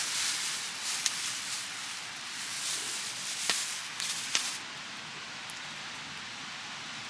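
Steady rushing hiss of a river flowing, with a few sharp clicks or crackles in the first half. About two-thirds through, the hiss drops and turns duller.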